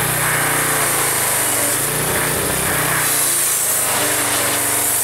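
Gas pressure washer running steadily: the Briggs & Stratton engine of a Troy-Bilt unit hums under the hiss of the high-pressure water jet. The hiss rises and falls as the spray plays over a mower's deck and engine.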